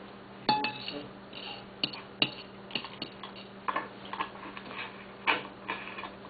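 Irregular sharp clicks and light knocks, about a dozen, over a steady low hum.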